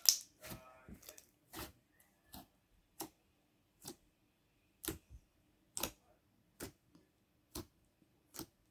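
Homemade slime being pressed, with air bubbles popping in it: a string of about a dozen short, sharp pops, roughly one a second, the loudest at the very start.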